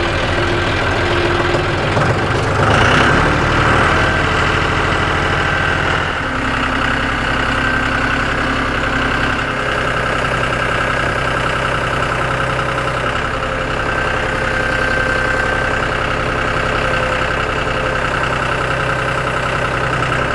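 John Deere utility tractor's diesel engine running while its front-end loader raises the front of an old Ford Bronco on pallet forks. The engine revs up about two to four seconds in, then settles to a steady lower speed from about six seconds in.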